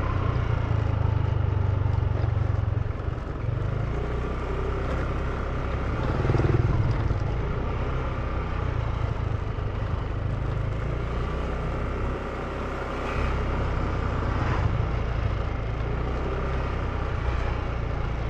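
Motor scooter running while being ridden along a road: a steady low engine and road hum with a few brief swells.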